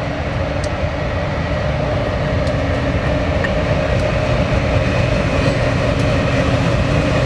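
BNSF GE C44-9W diesel-electric locomotive running past with its train: a steady engine rumble with a held hum, slowly growing louder.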